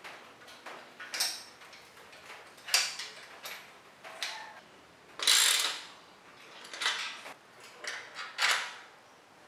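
Hand tools tightening the bolts that hold a metal rear carrier rack to a bicycle frame: a run of irregular metallic clicks and short rasps, the longest and loudest about five seconds in.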